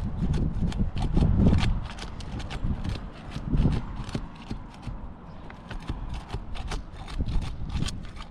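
Asphalt 3-tab shingle being unsealed from the roof: a run of irregular crackling clicks and ticks as the sealant strip tears loose and the tab is worked free, busiest in the first half. Wind rumbles on the microphone underneath.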